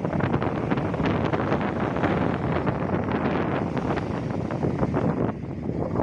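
Strong onshore wind buffeting the microphone in gusts, over heavy surf breaking on the beach.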